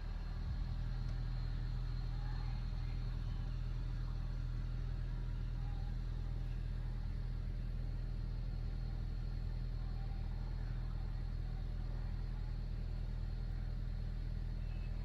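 Steady low engine-like rumble, an even hum with no change in pitch or level.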